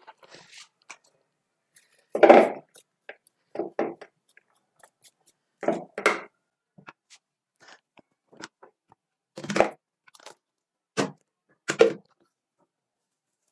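Short handling noises from a cloth strainer bag of wet blended cabbage being shaken out and laid in a bowl: about eight brief bursts with quiet between, the loudest about two seconds in.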